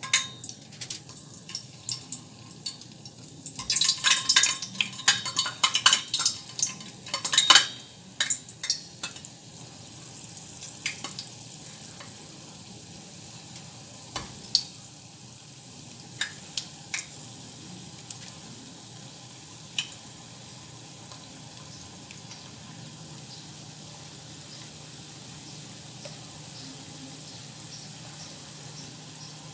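Small balls of zalabya dough dropping into hot oil in a small steel saucepan and deep-frying: a dense run of loud crackling and spitting for a few seconds as the pieces go in, then a steady sizzle with scattered pops. The oil is hotter than it should be, by the cook's own account.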